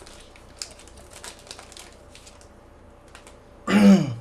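Trading cards being handled and slid through by hand, giving light, scattered clicks and flicks. Near the end a short vocal sound, with falling pitch, is the loudest thing.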